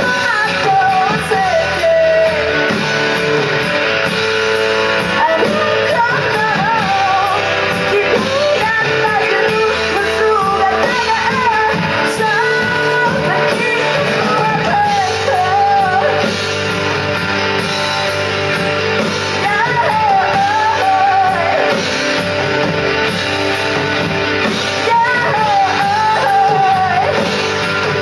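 Rock band playing: a singer's voice over guitar, with a steady beat of cymbal hits.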